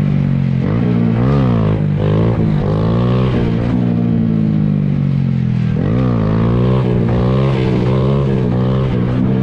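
Small dirt bike engine revving up and down, its pitch dipping and rising several times as the throttle is worked, over a second engine running at a steady pitch.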